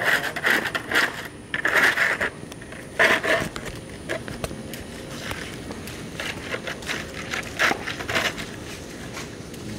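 Broom and dustpan sweeping burnt debris off wet asphalt: short scraping strokes of bristles and the dustpan's edge, in quick bursts, louder over the first few seconds and then softer.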